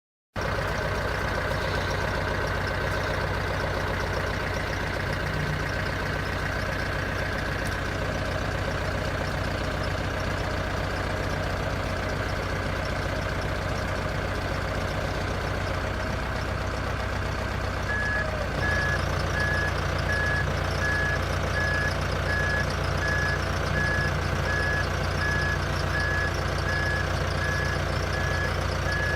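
A heavy vehicle's engine running steadily. About 18 seconds in, the engine note changes and a reversing alarm starts beeping, about one beep a second.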